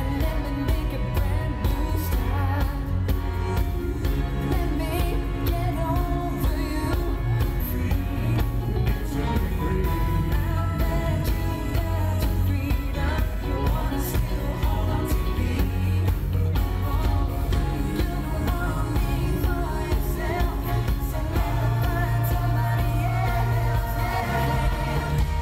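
Live pop music: a male vocal harmony group singing in harmony over a backing band with drums and a steady beat, heard from the audience in a concert hall.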